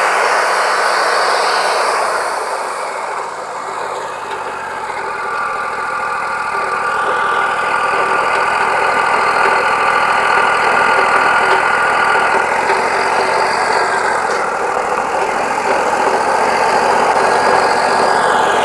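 Wood-Mizer LT40 Wide portable band sawmill running, its band blade cutting through a yellow pine cant. There is a steady whine through the middle of the cut.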